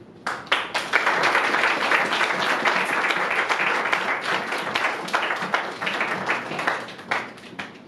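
Applause from the cast on stage and a small seated audience. It starts just after the beginning, holds steady, and thins to scattered claps near the end.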